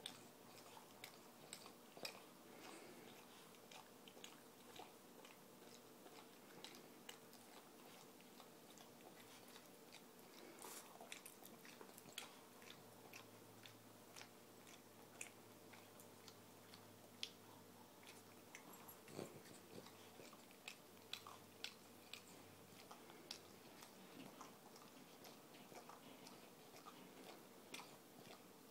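Boston terrier licking in and around another dog's mouth: faint, irregular wet smacking and clicking of tongue and lips, a few to several clicks a second.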